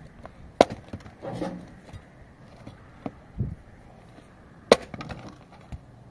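Mattock striking hard, stony ground: two sharp blows about four seconds apart, with lighter knocks and scrapes between them.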